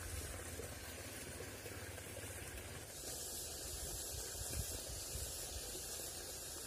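Faint, steady hiss of flowing creek water.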